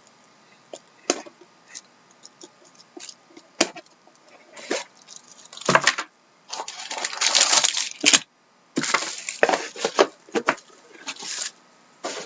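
Hands handling trading cards and their packaging: scattered light clicks and taps, then several louder bursts of rustling and scraping from about six seconds in.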